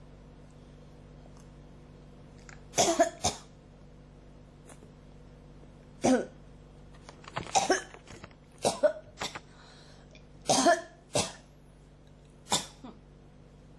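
A person coughing in a fit that won't stop: about nine short, sharp coughs, mostly in quick pairs and threes, with a pause of a second or two between clusters.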